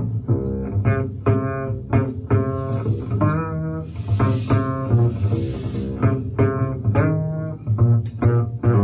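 Double bass played pizzicato in live jazz: a steady run of plucked notes. A brief hiss-like wash comes in about four seconds in and fades out after about two seconds.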